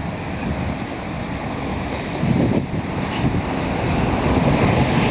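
Gusty wind buffeting the microphone over the low rush of street traffic, as a Nova Bus city bus draws near, getting louder in the second half.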